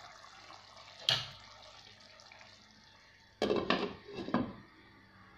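A glass pot lid set down onto a pan of stew, clinking and rattling a few times over about a second, past the middle. There is a single short knock about a second in.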